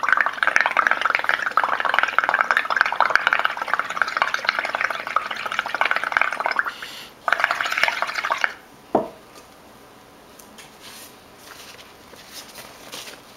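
Bubbling gurgle of air blown through a drinking straw into a bowl of tempera paint mixed with soap solution, foaming it into a heap of bubbles: one long blow of about seven seconds, a short pause, then a shorter blow of about a second and a half. A brief falling tone follows, then faint crackles.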